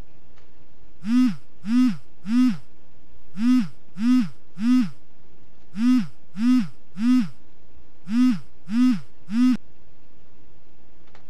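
Smartphone ringtone for an incoming call: four rings, each a group of three short hooting tones that rise and fall in pitch.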